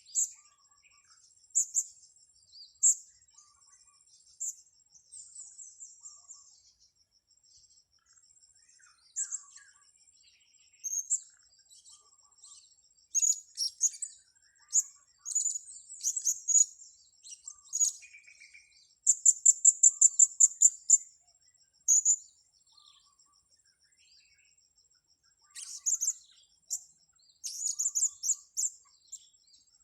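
Blue-crowned hanging parrots (serindit) giving sharp, high-pitched chirps. The notes come singly and irregularly, with a quick run of about ten notes a little past the middle.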